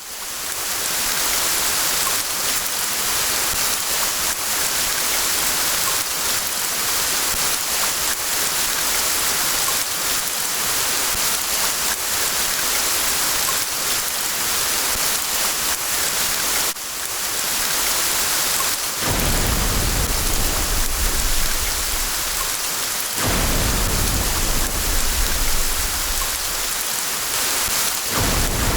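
Heavy rain falling steadily, a dense hiss. About two-thirds of the way in, two long, low rolls of thunder rumble under the rain, one after the other.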